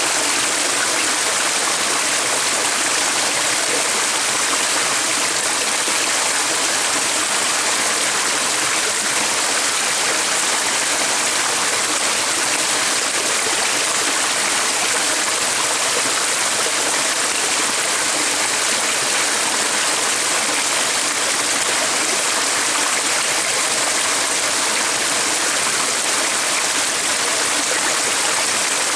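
Steady rushing of running water, like a stream, unchanging throughout.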